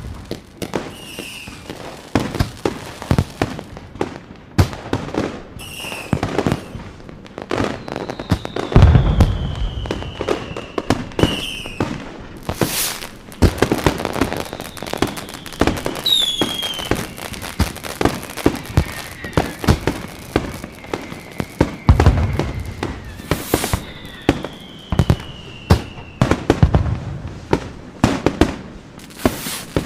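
Fireworks going off: dense crackling and sharp pops, with deep booms of bursting shells about 9, 22 and 27 seconds in, and several whistling tones that fall in pitch.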